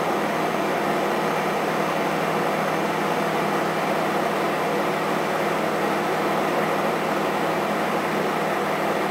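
Samsung microwave oven running steadily on full power, heating a whole egg inside.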